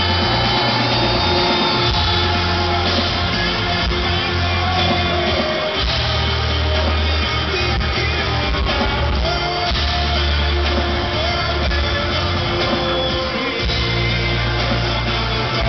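Live rock band playing: a male lead vocal sings over electric guitar, bass guitar and drums, with a heavy bass line that shifts every couple of seconds.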